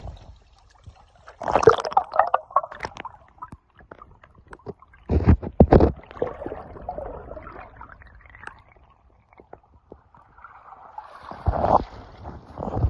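Water sloshing and gurgling in irregular surges, three louder swells with a softer wash between.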